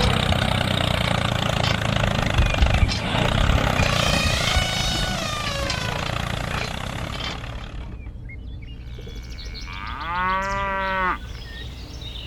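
A small engine running steadily, with some brief sliding whines over it, until it drops away about seven seconds in. Near the end comes one drawn-out call that rises and then falls, lasting just over a second.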